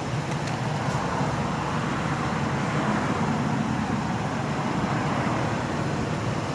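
A car's engine running steadily: a low, even rumble with a hiss on top.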